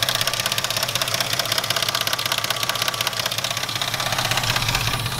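Jeep engine running at idle with a rapid, even knocking that sounds like rod knock, after the engine ran without oil and overheated.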